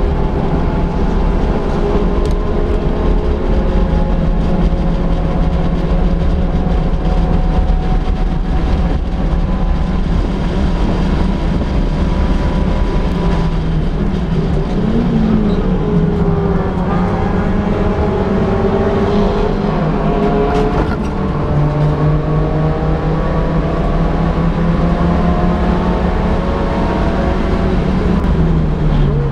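A touring race car's engine heard on board under racing load, its pitch climbing as it accelerates, dropping sharply about two-thirds of the way through, then climbing again.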